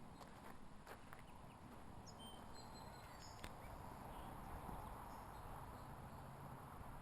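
Faint outdoor ambience with a few short, high bird chirps near the middle and a few light clicks.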